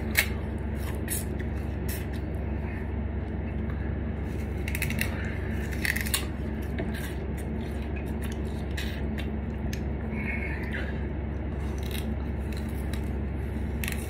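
Raw sugarcane being bitten, torn and chewed: scattered crunching, fibrous crackles, the sharpest just after the start and a few more around the middle, over a steady low hum.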